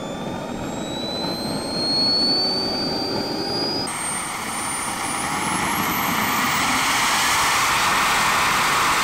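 KingTech K-80 model jet turbine starting up: a thin whine rises steadily in pitch as the rotor spools up, over a growing rush of exhaust. About four seconds in the whine steps higher and the rush grows fuller as the turbine accelerates.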